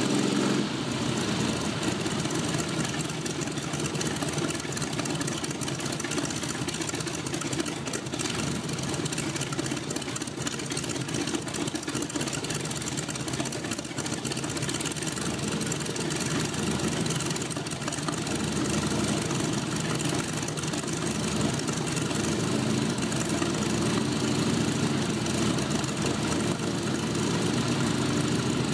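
Propeller aircraft engine idling steadily, its propeller turning, growing slightly louder toward the end.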